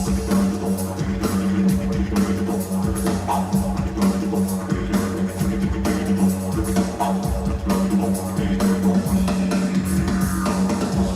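Music with a steady low drone held under it and drums beating.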